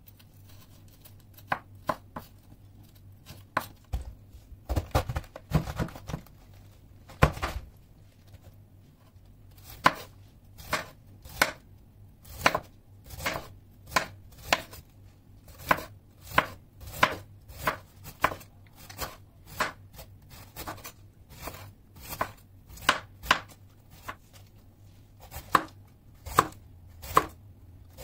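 Chef's knife chopping and shredding vegetables on a wooden cutting board. Sharp separate knocks, scattered at first with a few heavier thuds about five to seven seconds in, then a steady rhythm a little over one stroke a second as cabbage is shredded.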